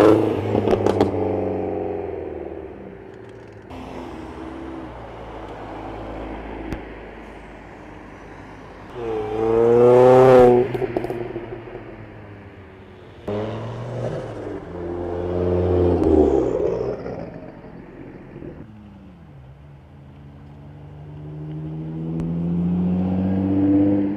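Modified cars driving past one after another and accelerating away, each engine note climbing in pitch as it revs. The loudest pass comes about ten seconds in. Near the end a Nissan 350Z's V6 pulls away. The clips are joined by abrupt cuts.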